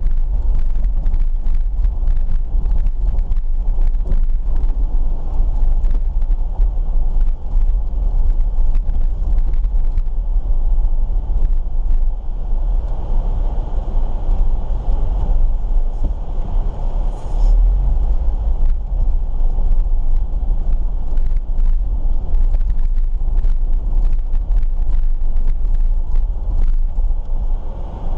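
Jeep Wrangler driving slowly over a rough gravel road: a steady low rumble of engine and tyres with frequent small knocks and rattles from bumps and stones, and a brief hiss about seventeen seconds in.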